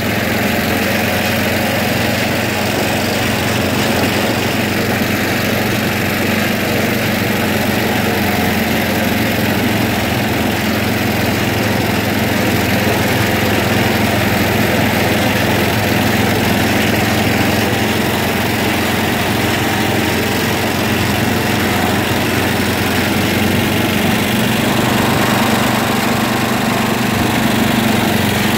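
John Deere tractor's small engine running steadily as the tractor is driven over sand and mud.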